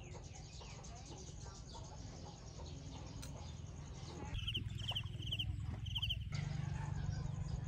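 Outdoor ambience of small birds chirping, over a steady low hum. About four seconds in, a high, rapidly pulsed trill sounds four times in quick succession.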